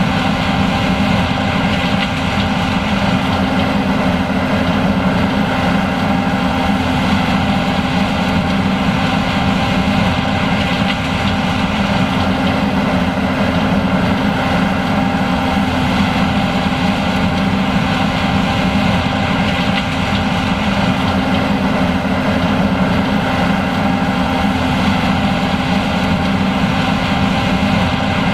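John Deere S780 combine running steadily under load while harvesting corn, with its diesel engine and threshing machinery making a constant, loud drone with several steady tones.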